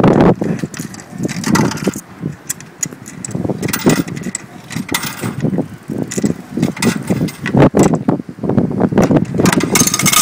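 Coins being fed into a pay-and-display parking meter's coin slot, with scattered clicks and clinks from the machine, over loud, irregular rumbling noise. The meter is rejecting the coins and sending them back.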